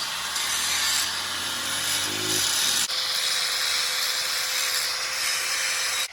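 Handheld electric power tool running against a workpiece: a steady motor whine under a harsh rubbing hiss. There is a slight change about halfway, and it stops abruptly at the end.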